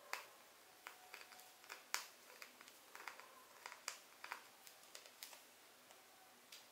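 Scattered sharp clicks and taps of spinning-reel parts being handled during repair, irregularly spaced, the loudest near the start and about two seconds in.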